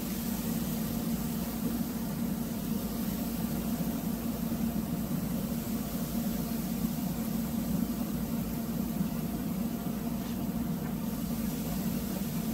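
Wood-pellet grill's fan motor running with a steady low hum.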